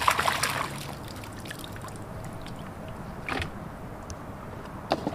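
Shallow water splashing and sloshing: a burst at the start, then quieter trickling with a few light clicks and another short splash just after three seconds.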